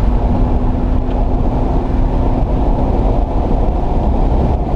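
Rally car at speed heard from inside the cabin: a loud, steady drone of engine and tyre-on-tarmac noise, with a held engine note over the first couple of seconds.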